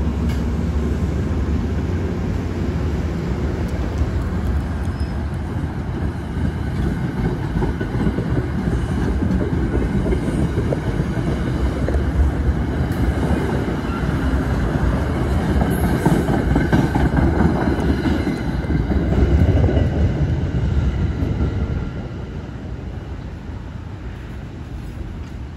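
Diesel-hauled commuter train rolling past on the rails: a steady low rumble with wheel clatter, which drops off suddenly near the end as the train clears.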